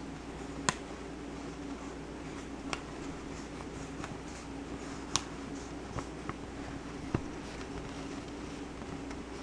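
A sheet of paper handled and shifted in the hands, giving about five short, sharp crackles spread through the stretch, over a steady low hum.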